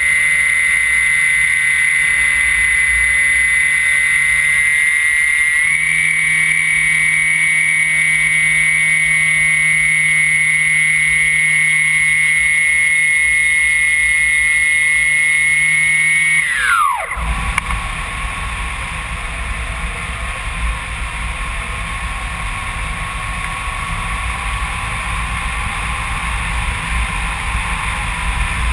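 Electric motor and propeller of a HobbyKing Phoenix 2 m powered glider running with a steady high whine, stepping up slightly in pitch about six seconds in. About seventeen seconds in the motor is cut and spins down with a quickly falling whine, leaving wind rushing past the airframe and camera.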